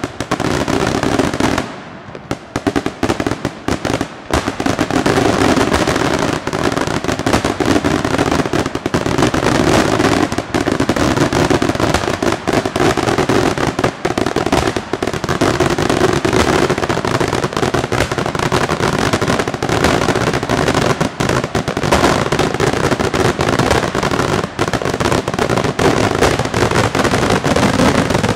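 Daytime aerial fireworks shells bursting in a dense, continuous barrage of bangs and crackling reports. There is a brief lull about two seconds in, then the barrage runs unbroken again.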